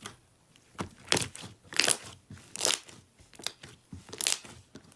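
Slime being squeezed and pressed by hand, giving about six short crackling crunches at irregular intervals.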